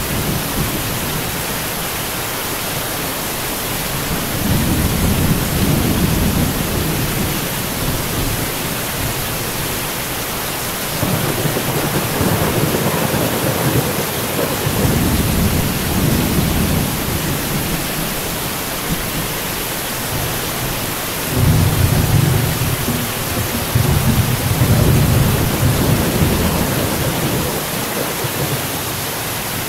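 Steady heavy rain hissing, with thunder rolling in three long, low rumbles that swell and fade; the loudest starts about two-thirds of the way through.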